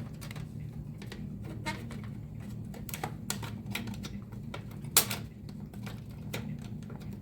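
Irregular small metallic clicks and clinks as PC case parts are handled: the removed PCI expansion-slot covers and their screws. A sharper clack comes about five seconds in, over a steady low hum.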